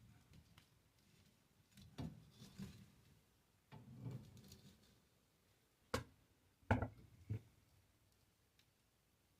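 Split firewood being handled and set down in a fireplace: a series of separate wooden knocks and clunks, the sharpest about six seconds in.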